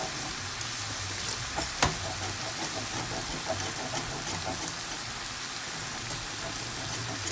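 Steady sizzling hiss of mushrooms cooking down in a hot pan, with a utensil stirring thick polenta in a pot. There are small ticks throughout and one sharp click about two seconds in.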